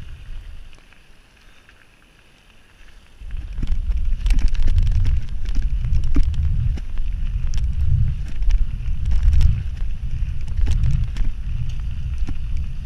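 Wind buffeting the microphone of a camera riding along on a mountain bike going downhill on a gravel track, with sharp clicks and rattles from the tyres and bike over the stones. Fairly quiet for the first three seconds, then the rumble and rattling come up loud and stay loud as the bike speeds up.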